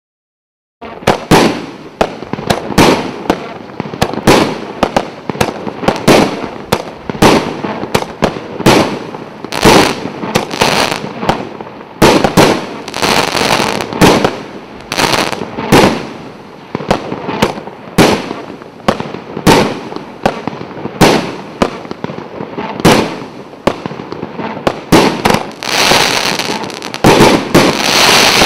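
A 19-shot, 1.25-inch firework cake firing: starting about a second in, a rapid series of launch thumps and aerial bursts. A crackling fizz from crackling-glitter effects comes in around the middle and grows dense near the end.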